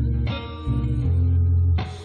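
Live band music: electric guitar playing plucked notes over a bass guitar line, with new notes sounding about a quarter second in, again a little later, and a sharp attack near the end.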